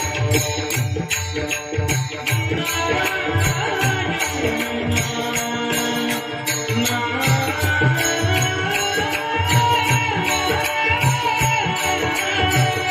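Marathi Warkari bhajan: a man's voice sings a devotional melody over held harmonium tones, low pakhawaj drum strokes and a fast, steady beat of small hand cymbals (taal).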